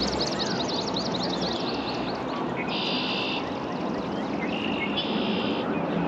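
Many birds singing and calling together: a stream of short repeated chirps, with a buzzy trill about three seconds in and another about five seconds in, over a steady low hum.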